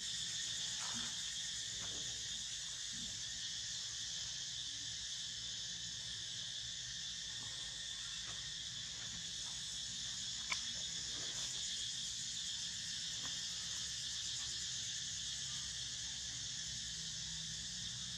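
Steady, high-pitched chorus of insects, with one sharp click about ten seconds in.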